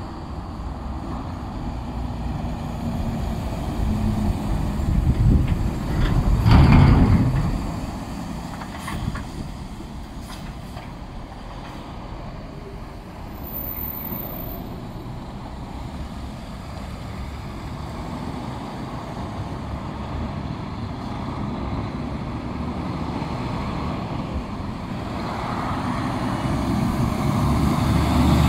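Loaded dump trucks driving past on a wet street, with engine rumble and tyre noise. One passes loudly about six to seven seconds in, and another grows louder near the end as it approaches.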